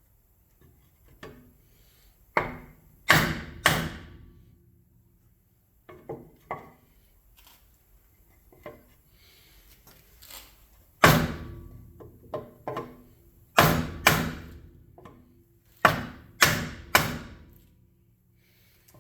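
Hammer blows on a bent cast-aluminium motorcycle front rim, tapping out a dent to straighten it. About a dozen sharp strikes come in groups of two or three, each ringing briefly.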